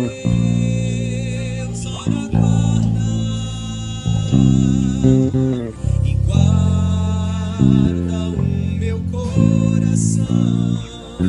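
Electric bass guitar playing held notes that change every second or two, over a worship band's music with some singing.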